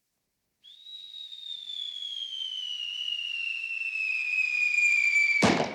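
Cartoon fall sound effect: a long whistle slides slowly down in pitch and grows louder for about five seconds, then ends in a sudden loud crash of impact near the end.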